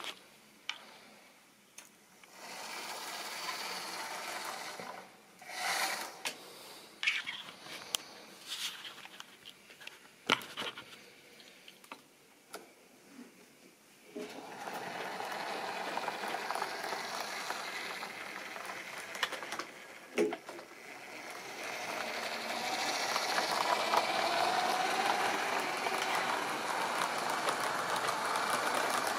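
Scattered knocks and handling sounds, then from about halfway an OO-gauge model train running on sectional track. Its steady mechanical whir and wheel rattle grow louder near the end as the coaches pass close by.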